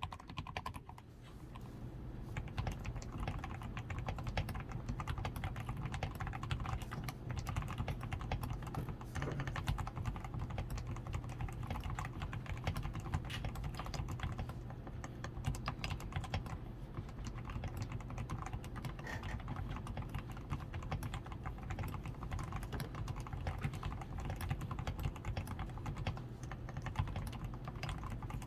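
Continuous typing on a DAREU A87 Pro mechanical keyboard, fully lubed with Krytox 105, with a PCB tape mod, foam-reinforced switches, lubed stabilizers and XDA keycaps: a dense, steady run of keystrokes. The typing is a little sparser at first and picks up about two seconds in.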